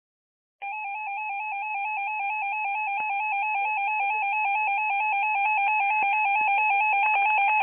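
Electronic alert tone from an emergency alert receiver, rapidly warbling back and forth between pitches and starting about half a second in, growing slightly louder. It signals that a new warning bulletin is about to be broadcast.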